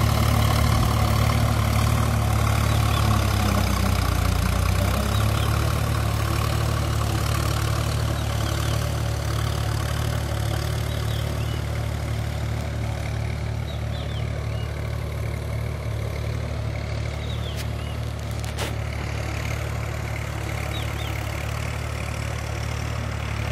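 Sonalika DI 47 4x4 tractor's diesel engine running steadily while it pulls a rotavator through flooded paddy mud, getting slowly quieter as the tractor moves away.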